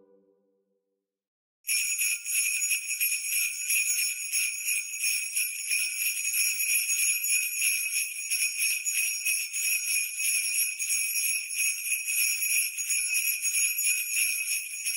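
Jingle bells shaken steadily, starting about two seconds in after a short silence.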